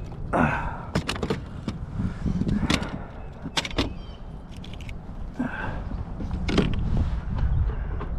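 Handling noises: a string of sharp clicks and knocks with a few short scrapes, over a steady low wind rumble on the microphone.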